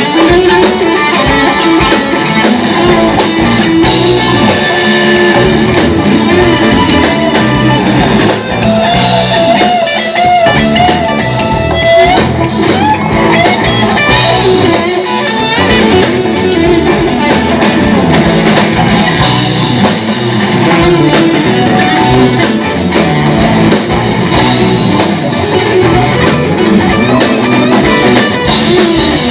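Live rock band playing through a PA, electric guitar to the fore over a drum kit, loud and unbroken.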